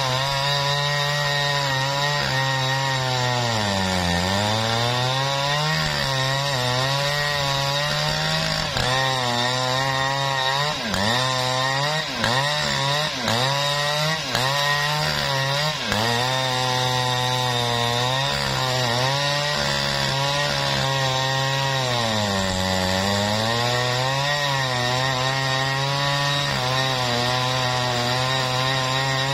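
Jonsered chainsaw running at high revs as it rips lengthwise through a jackfruit log. Its pitch sags and recovers again and again as the chain bogs in the cut, deepest about four seconds in and again near the end.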